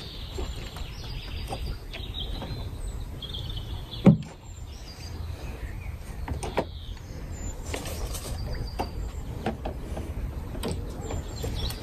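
Small birds chirping over a steady low rumble, with one sharp knock about four seconds in, the loudest sound, and a few fainter clicks.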